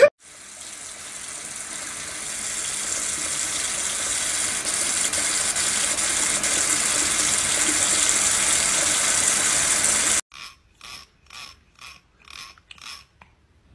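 Kitchen tap running, a steady hiss of water streaming into the sink that grows louder over the first several seconds. About ten seconds in it cuts to a run of short, dry ratcheting clicks, about two or three a second: a finger strummed along the teeth of a plastic comb.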